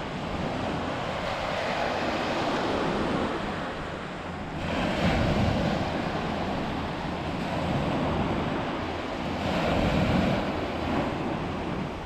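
Small Lake Superior waves washing up and breaking on a sandy beach in a steady rush, swelling louder about five seconds in and again about ten seconds in.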